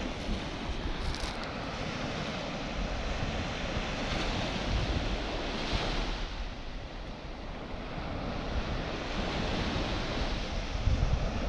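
Small sea waves breaking and washing up a sand beach, the surf swelling and easing, with wind gusting on the microphone.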